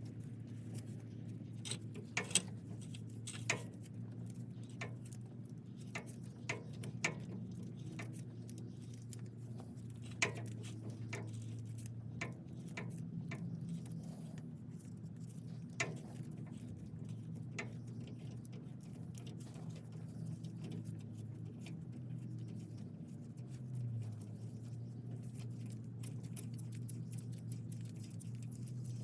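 Irregular light clicks and taps of hand tools and parts being handled, a few sharper knocks among them, over a steady low hum.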